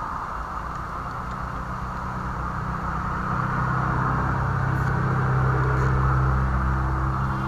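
An engine running with a steady low hum, growing louder from about three seconds in and easing off near the end, over a constant hiss.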